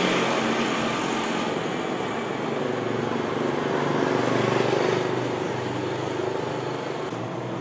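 Steady motor-vehicle noise, an engine running amid street traffic, swelling a little about four to five seconds in.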